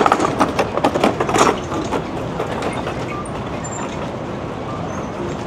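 Steady urban background din of a busy city area, with a louder stretch of irregular clattering and knocks in the first two seconds that then settles into an even hum.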